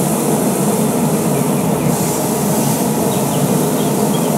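Steady rushing noise of a grill running on high heat, with beef fillets sizzling on a hot salt block.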